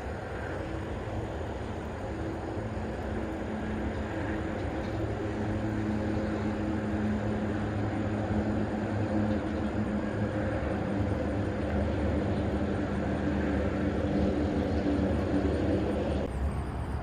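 A distant engine drones steadily with a low pitched hum, slowly growing louder, then dropping off sharply near the end.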